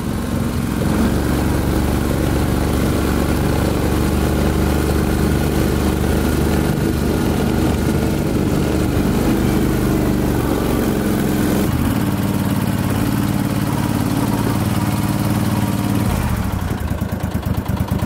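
Argo amphibious ATV's engine running steadily as it drives into thick woods. Its note shifts about two-thirds of the way through and eases off near the end.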